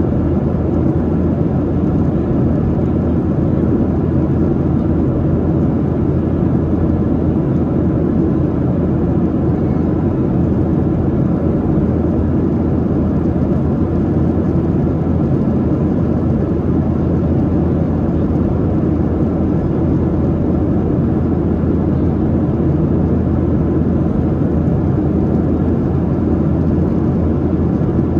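Steady cabin noise inside a Boeing 737-800 in flight: the CFM56-7B turbofan engines and rushing airflow make a loud, even, low drone.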